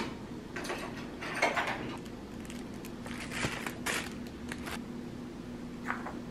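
Kitchen prep handling: a few short scrapes and clicks of a butter knife and utensils against a wooden cutting board as butter is taken up for spreading, over a faint steady low hum.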